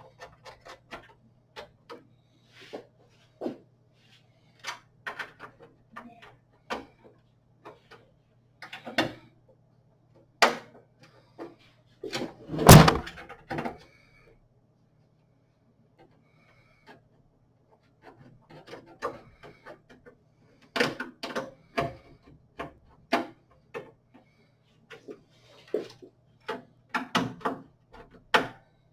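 Metal computer-case parts being handled and fitted: irregular clicks and light knocks as a case plate goes back on, with one loud clunk about halfway through.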